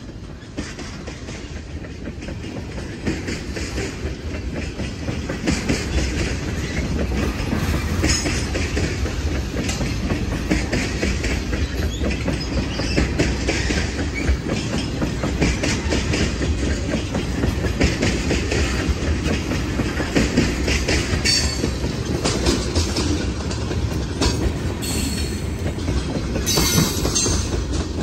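Freight train tank cars rolling past close by: a steady rumble with the clickety-clack of steel wheels over the rail joints, building in level over the first few seconds. A few brief high wheel squeals come in the second half.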